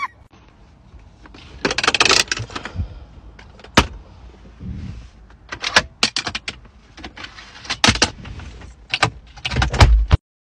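Plastic clicks, knocks and rattles of a car's dashboard compartments and glovebox being handled, opened and shut, with rustling between. The sharp clicks come irregularly, about a dozen of them, bunched more closely near the end, and the sound cuts off suddenly just before the end.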